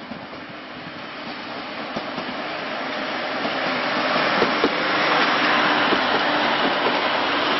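KiHa 65 diesel railcar train passing close by: the running noise of engines and wheels grows louder over the first four seconds as the cars draw alongside, then holds steady. A couple of short clicks come about four and a half seconds in.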